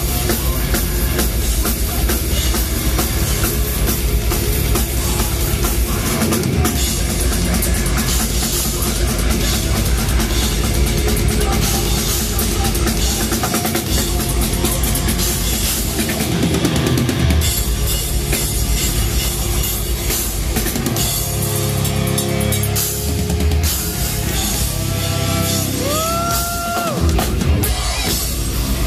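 Deathcore band playing live at full volume: pounding drum kit, distorted guitars and bass, and screamed vocals. A rising, then held, note cuts through near the end.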